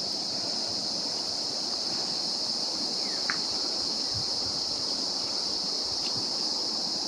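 Steady, high-pitched drone of an insect chorus, continuous and unchanging.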